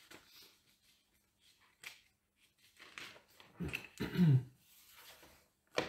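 Mostly quiet room tone with a few faint ticks. About two-thirds of the way through, a man makes two short, low vocal sounds, not words, and there is a sharp click near the end.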